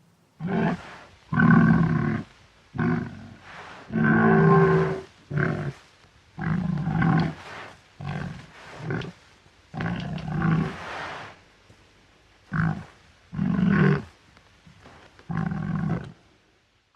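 Wild boar grunting and growling in a series of about a dozen harsh, throaty calls, some short and some drawn out to a second or more, with brief pauses between them.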